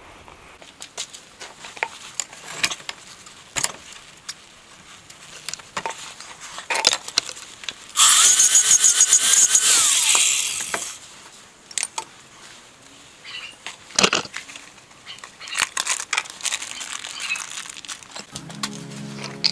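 Scattered metallic clinks and knocks of tools working on a car's rear stabiliser link. About eight seconds in, a power tool runs for about three seconds, its pitch rising as it spins up and falling as it winds down.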